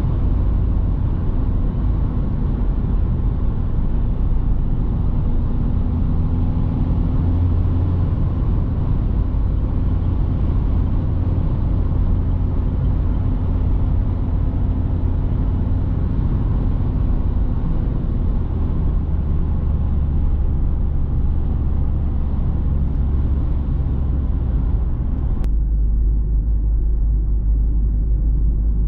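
Citroen C3 Picasso's 1.6 HDi four-cylinder turbodiesel running steadily under way, with tyre and road noise. The engine note drops slightly about two-thirds through, and near the end the sound changes abruptly to a duller hum with less hiss.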